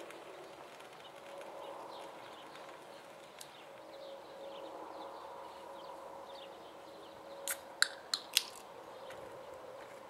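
Outdoor ambience: faint small-bird chirps scattered over a low steady hum. About seven and a half seconds in come four sharp clicks within about a second, the loudest sounds here.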